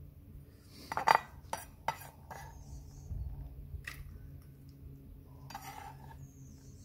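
Chef's knife clinking against a stainless steel bowl and tapping and scraping on a wooden cutting board as diced garlic is scraped into the bowl: a few sharp clicks, the loudest about a second in, then a short scrape later on.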